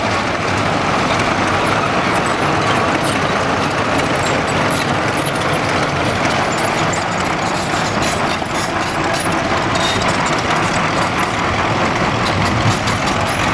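Vintage Caterpillar diesel crawler tractors and a motor grader running steadily as they drive past, a loud unbroken engine sound.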